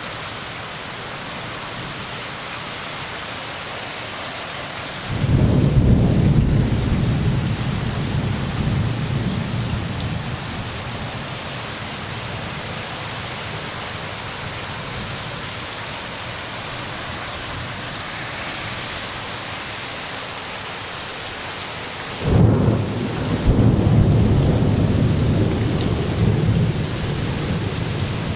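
Steady heavy rain with thunder: a rumble rolls in about five seconds in and fades over several seconds, and a second, sharper-onset rumble breaks about twenty-two seconds in and is still rolling near the end.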